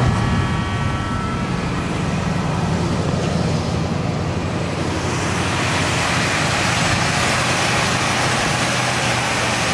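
1979 Lincoln Mark V's 400 cubic inch V8 idling steadily. A rushing hiss grows louder from about five seconds in, as the open engine bay comes close.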